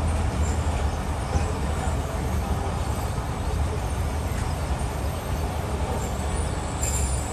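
Moving passenger train heard on board: a steady low rumble of the coach running slowly on the rails.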